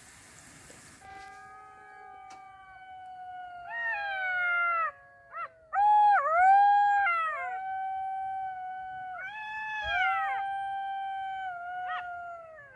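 Several golden jackals howling together: long, wavering high-pitched howls that rise and fall and overlap one another, starting about a second in.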